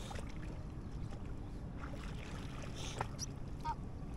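Steady low rumble of wind and water on open water, with a few faint clicks and two short chirps about three seconds in.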